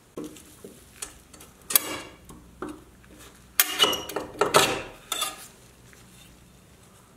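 Rusty pressed-steel Tonka toy truck body parts clinking, knocking and scraping as they are handled on a wooden bench, with a louder run of clatter in the middle.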